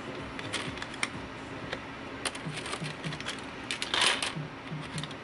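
Light plastic clicks and scrapes as a laptop's plastic front screen bezel is pushed and levered into place with a small tool, with a louder scrape about four seconds in.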